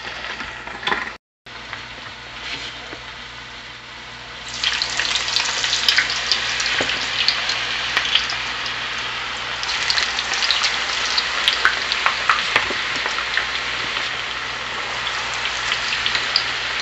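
Hot cooking oil sizzling and crackling in a pot as raw cut potato fries go in to deep-fry. The sizzle jumps much louder about four and a half seconds in and keeps up a dense hiss with scattered pops.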